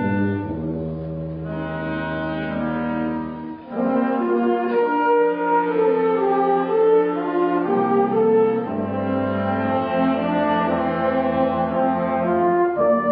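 Concert wind band playing held chords with brass prominent. The sound thins and drops briefly about three and a half seconds in, then the full band comes back louder.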